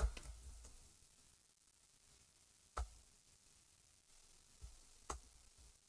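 A handful of single computer-keyboard keystroke clicks, spaced a second or more apart, as a command is typed slowly, with near silence between them.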